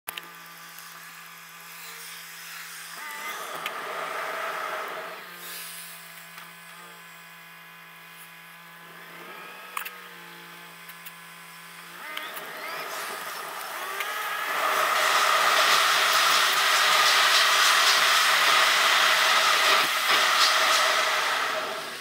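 A car's engine and road noise heard from inside the cabin, sped up by time-lapse so it has a drill-like pitch. The engine holds a steady hum while the car waits in traffic and rises in pitch as it pulls away. It gets much louder and noisier from about two-thirds of the way through, once the car is moving.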